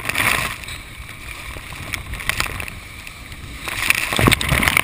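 Whitewater rapids of the Colorado River at very high flow, water crashing and splashing around a raft. It surges loudest right at the start and again from about four seconds in, with scattered knocks.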